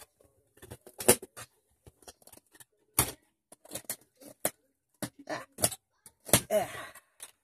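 Cardboard and plastic packaging being handled and pulled apart as a toy foam-dart blaster is taken from its box: an irregular run of short rustles, clicks and knocks.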